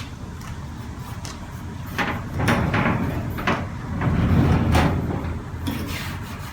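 A big vintage metal rolling tool chest being handled and shifted: a low rumble with several clunks and knocks, swelling about two seconds in and loudest near the middle before easing off.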